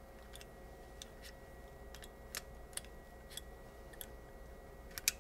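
Faint, irregular clicks and ticks of a wrench and pliers working on a cable gland's compression nut as it is tightened onto a cable, with a sharper double click near the end.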